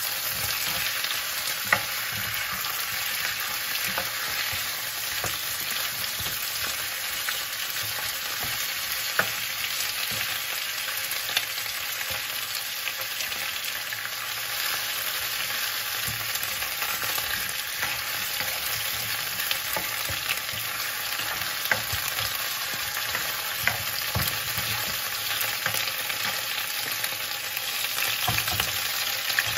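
Chicken drumsticks frying in oil with ginger and onion in a non-stick wok: a steady sizzle as they brown, stirred with a spatula, with a few sharp clicks of the spatula against the pan.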